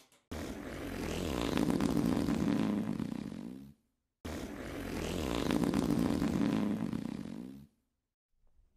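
Long fart sound effect lasting about three and a half seconds, played twice with a short silent gap between. A short, sharp squeak starts at the very end.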